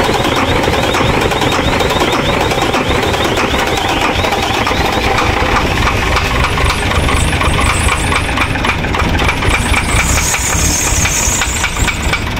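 Howo 380 dump truck's electronic diesel engine running unevenly just after starting, with a regular knocking beat (lagatak) that the mechanics trace to a faulty injector. A brief high hiss comes in about ten seconds in.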